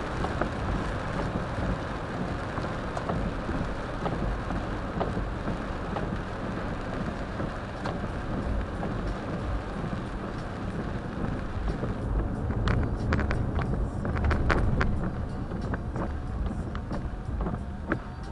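Car interior noise while driving on a highway in heavy rain: a steady rumble of tyres and road with rain hissing on the car. About two-thirds through, the hiss thins and scattered sharp ticks stand out.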